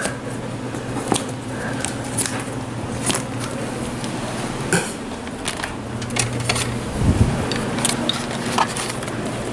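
Scissors snipping the plastic packing straps on a cardboard box, with scattered sharp clicks and the rustle of the box being handled. There is a low thump about seven seconds in.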